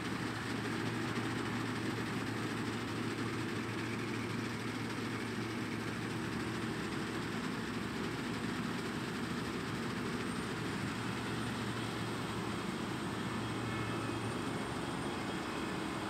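Claas Lexion combine harvester running while cutting wheat: a steady low engine hum under a continuous wash of machinery noise. The low hum drops out near the end.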